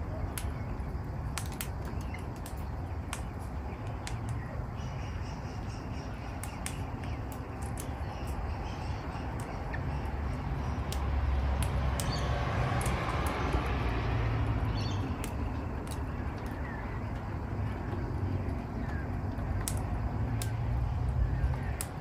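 Crimson rosellas husking seed on a railing: a scatter of short, sharp beak clicks over a steady low rumble, with a broad rushing sound swelling up and fading in the middle.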